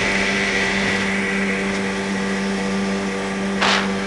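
Speedboat engine running at a steady speed under way, with a constant pitch over the rush of wind and water. A short burst of rushing noise comes near the end.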